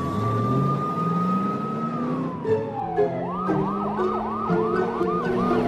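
Police car siren: a long wail that rises, holds, then falls, switching about three seconds in to a fast yelp of quick rising-and-falling whoops, about four a second.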